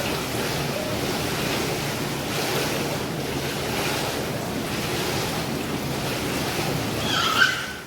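Steady rushing roar of a waterfall in a rocky gorge. A short high-pitched sound comes near the end, and then the sound cuts off.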